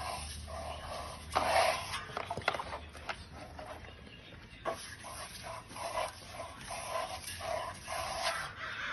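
Hand work on a wet smooth-finish stucco wall: a hand-pump water sprayer misting the plaster and a trowel sweeping over it, with a run of short strokes about two a second in the second half.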